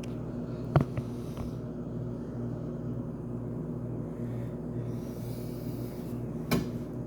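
Mini washing machine's motor running with a steady, pulsing hum, with a few sharp clicks or knocks about a second in and near the end.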